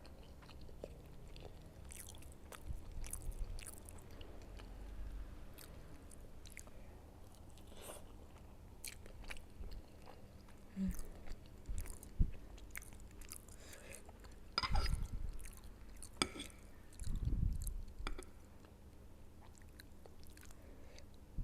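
Close-miked chewing of siomay fish dumplings, with soft wet clicks of the mouth and a few louder bursts of chewing about two-thirds of the way in.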